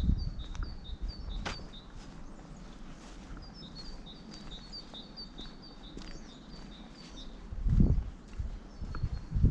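A small songbird repeating a short chirp that alternates between two pitches, about three notes a second, in runs with short pauses, over a light outdoor hiss. A few low thumps come through, the loudest about eight seconds in.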